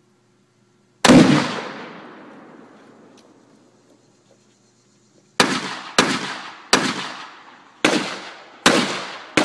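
One loud explosive blast about a second in, with a long rolling echo that fades over several seconds. From about five seconds in come six gunshots, spaced roughly 0.6 to 1 second apart, each with a short echo.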